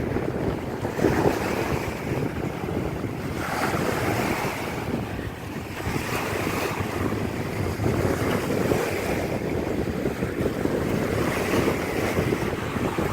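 Strong wind buffeting the microphone over the steady wash of surf, with the surf swelling a few times.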